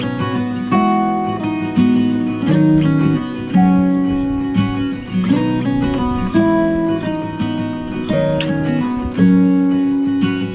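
Background music: acoustic guitar playing notes and strummed chords.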